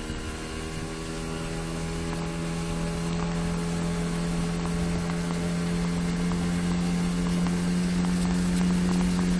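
9.8 hp outboard motor running steadily under way after throttling up, its pitch and loudness creeping slightly higher.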